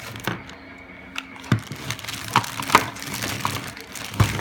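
Plastic toy pieces and packaging being handled: a few light knocks and clicks, irregularly spaced.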